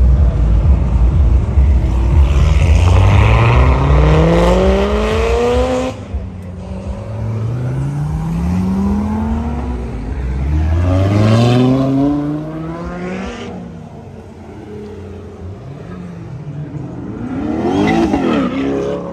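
Several cars accelerating hard away one after another, each engine climbing steeply in pitch as it revs, with a deep rumble at the start. Among them is a C8 Corvette's V8.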